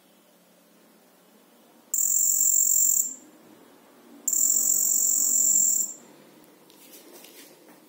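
Piezo buzzer of an Arduino metal detector sounding two high-pitched steady tones, about one and one and a half seconds long, each starting and stopping sharply, the alert that metal is near the detector's coil.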